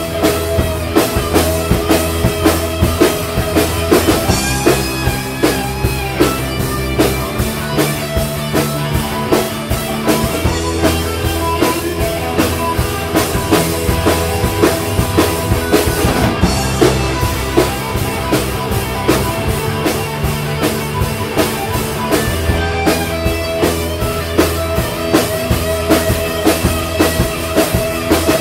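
Rock music: a drum kit keeping a steady beat over a bass line that changes note every couple of seconds, with held chords above.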